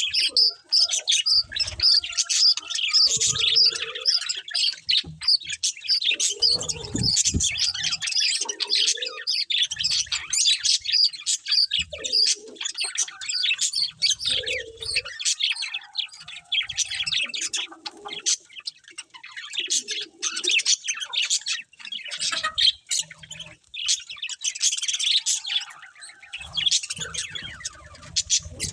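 A group of budgerigars (budgies) chirping and warbling continuously in rapid, overlapping high chirps, with occasional low bumps.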